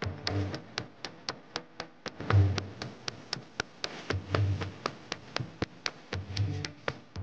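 Music with a steady fast clicking beat, about four clicks a second, and a low drum stroke about every two seconds.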